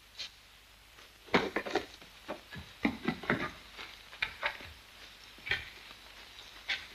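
A wicker basket shaken and handled as feathers are tossed out of it: an irregular string of short creaks, knocks and rustles, busiest in the first half.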